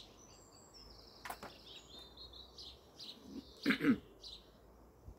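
Small garden birds singing, with overlapping chirps and short high trills. There is a sharp click a little over a second in, and a brief louder, lower sound, the loudest thing here, about three-quarters of the way through.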